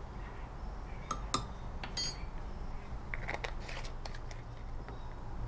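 A few light clicks and clinks of a small metal measuring scoop and plastic glitter jars being handled, one with a short metallic ring about two seconds in, over a steady low hum.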